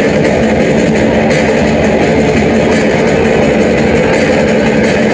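A sound system plays a loud, steady droning rumble from a sonidero intro soundtrack through its PA. It is a dense wash with a low held hum and no clear beat.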